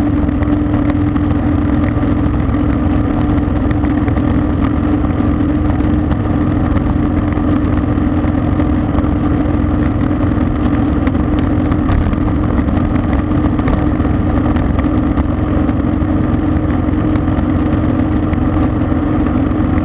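Motorcycle cruising steadily at highway speed: a constant engine drone mixed with wind and road noise on the mounted camera.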